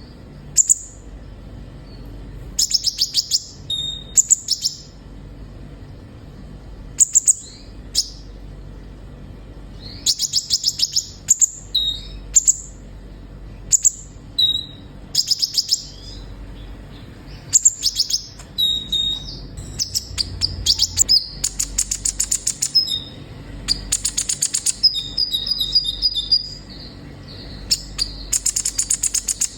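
A sunbird singing: short bursts of rapid, high-pitched chips and trills, a new phrase every second or two.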